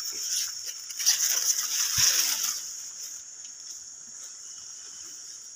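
A steady, high-pitched chorus of forest insects such as cicadas or crickets. Over the first half there is louder rustling and brushing of leafy undergrowth, with one dull knock about two seconds in.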